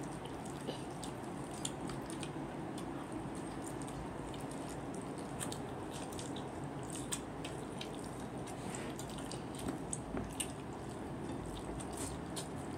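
Chewing and lip smacking close to the microphone: scattered small clicks over a steady low room hum.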